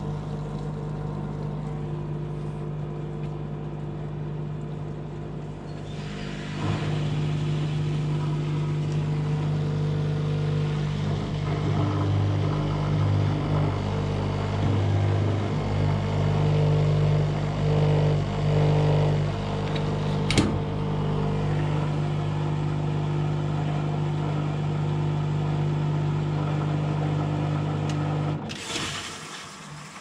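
Old front-loading washing machine running: a steady electric motor hum that wavers now and then, with one sharp click about twenty seconds in, cutting off suddenly near the end.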